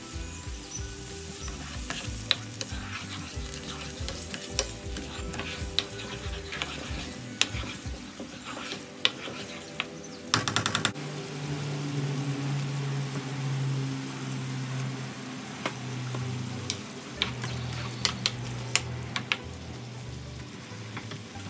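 Tomato sauce with mushrooms and capsicum sizzling and simmering in a pan while a spatula stirs it, with scattered scrapes and taps against the pan and a quick rattle of taps about halfway.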